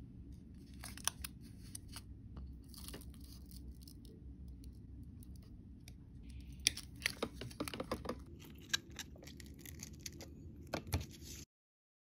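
Crackling clicks and crunches as a pink plastic L.O.L. Surprise capsule and its coarse crystal granules are handled and scraped, thickest in a busy flurry past the middle, over a steady low hum. The sound cuts off suddenly near the end.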